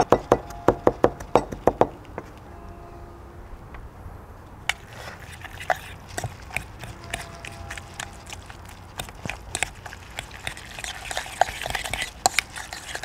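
Chef's knife chopping a serrano pepper on a cutting board in quick, even strokes, about five a second, stopping about two seconds in. A spoon then stirs and mashes guacamole in a bowl, with scattered clicks of the spoon against the bowl.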